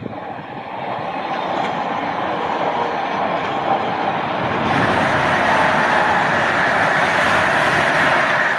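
A train passing: a steady rush of wheel-on-rail noise that builds, grows louder and brighter about halfway through, and starts to fade at the end.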